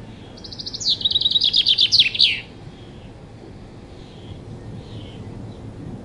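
Common chaffinch singing one song phrase of about two seconds, starting about half a second in. It is a fast run of repeated high notes that steps down in pitch partway and ends in a flourish of downward-sweeping notes, over a steady low background hiss.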